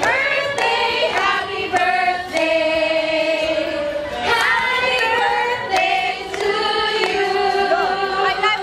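Group of people singing a celebration song together around a lit cake candle, several voices at once.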